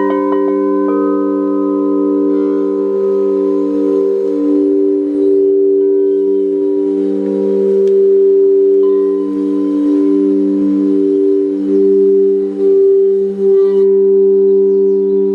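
Crystal singing bowls rubbed with wands, several bowls sustaining steady overlapping tones together. The tones swell and fade slowly, and a higher bowl tone joins about a second in.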